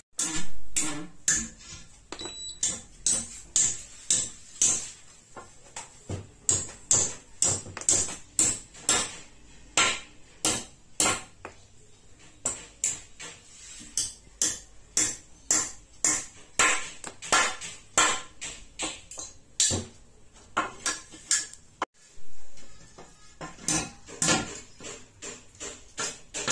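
Background music with a steady percussive beat, about one to two sharp strikes a second.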